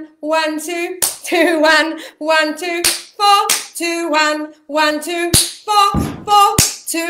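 A woman singing a vocal warm-up unaccompanied: short sung notes stepping up and down a scale in a quick pattern. It is punctuated by about six sharp hits, hand claps and foot stamps on a wooden floor, most of them in the second half.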